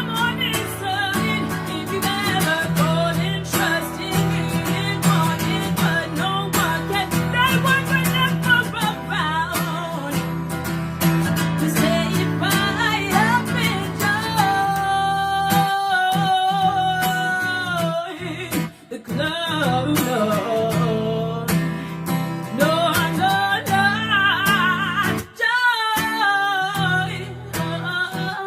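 A woman singing a song to her own acoustic guitar accompaniment, with long held notes and two brief pauses about two-thirds of the way through.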